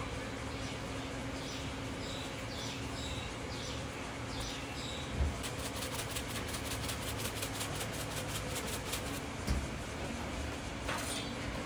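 Steady hum of the stall's cooking equipment, with a few short squeaky squirts early on. About halfway in, a quick, even run of light ticks as a shaker sprinkles topping over the pancake on the griddle.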